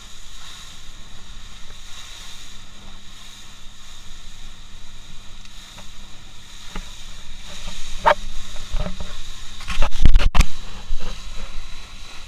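Steady hiss and hum of a boat under way, with a few knocks near the end, the loudest about ten seconds in.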